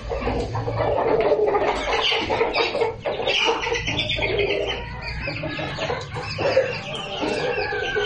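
Several chickens clucking at once, their calls overlapping.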